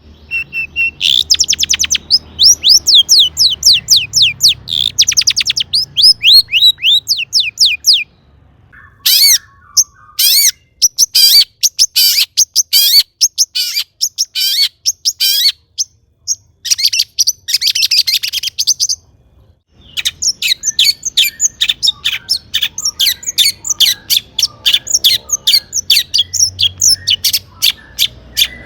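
Long-tailed shrike (cendet) singing in fast runs of sharp, high notes, several a second, with series of quick downward-sweeping calls in the first part and short pauses about 8 and 20 seconds in.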